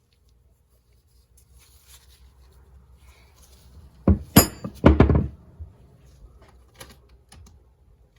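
Metal engine parts being handled while the head gasket is taken off a two-stroke cylinder top: faint rattles and clicks, then a quick cluster of loud metallic clanks and knocks about four seconds in, one ringing briefly, followed by a few small clicks.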